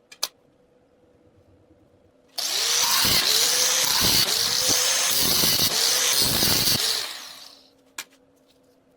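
A handheld power tool runs against steel for about five seconds with a harsh hiss, its motor pitch dipping several times as it is pressed into the work. It then winds down after being switched off. There is a short click about a quarter second in and another near the end.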